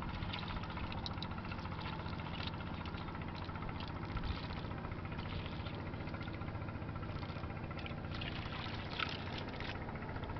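An engine idling steadily, with scattered wet squelches and trickles as hands sift shrimp out of watery river mud in a wooden boat's hull.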